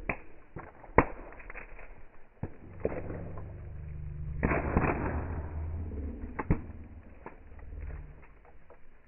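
Quad (ATV) ride: a low engine hum under a string of sharp knocks and clatters, the loudest about a second in, with a rougher rattling stretch near the middle.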